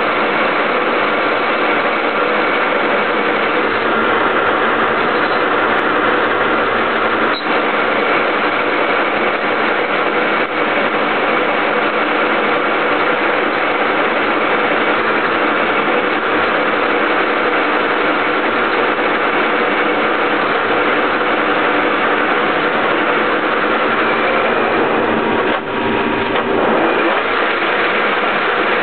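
Soviet 1K62 engine lathe running steadily under a parting-off cut in steel, its geared headstock giving a continuous whine of several tones over a dense mechanical noise. The sound dips briefly twice, a little after 7 s in and near the end.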